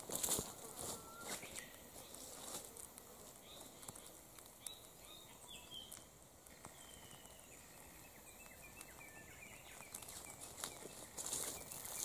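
A rubber strap burning in an open flame, crackling and popping, busiest at the start and again near the end. Faint chirps sound through the quieter middle.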